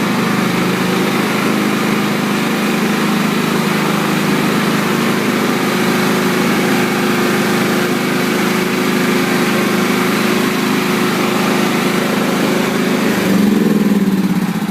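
Riding lawn mower engine running steadily under way, with a brief rise in level and a shift in pitch near the end.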